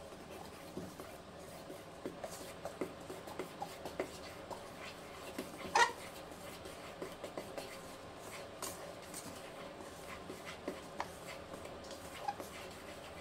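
Dry flour, baking powder and sugar being stirred together in a stainless steel mixing bowl: faint scraping with light, irregular clicks of the utensil against the bowl, one louder clink about six seconds in.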